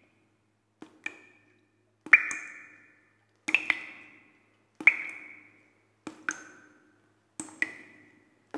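A metal tool striking stone in a slow, steady rhythm, a clink about every second and a half. Each strike rings out briefly, and several come as a quick double hit.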